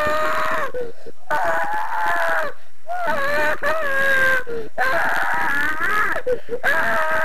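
A young child screaming in a tantrum: long, high, wailing screams of one to two seconds each, about five in a row with short breaks between.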